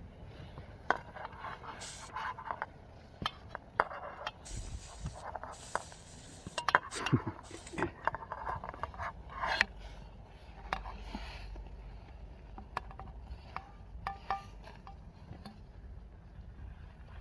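Scattered clinks, knocks and scrapes of dishes, cups and utensils being handled, with a few stretches of rustling or scraping between 4 and 10 seconds in.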